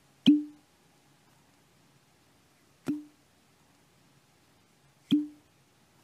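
A cork pulled from a bottle three times, each time with a sharp pop followed by a brief low ring. The first pop is the loudest, and the pops come about two and a half seconds apart.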